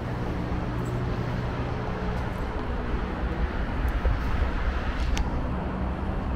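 Street ambience with a vehicle engine running steadily close by, a low, even hum, and a few faint clicks.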